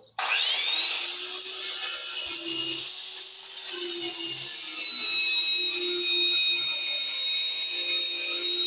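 Electric angle grinder with a wire brush switched on, its whine climbing to full speed within about a second, then running steadily as the brush scrubs rust off a steel pipe.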